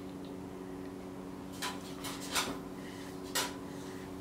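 Steady low hum, with four short sharp clicks or scuffs in the second half, two of them close together.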